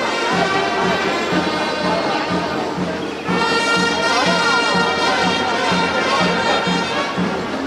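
Festival band music: horns playing a melody with some sliding notes over a steady drumbeat of about two beats a second.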